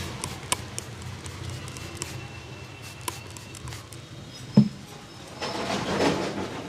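A few light clicks and taps, then one heavy, dull thump about four and a half seconds in, followed by a brief rushing noise, over a low steady hum.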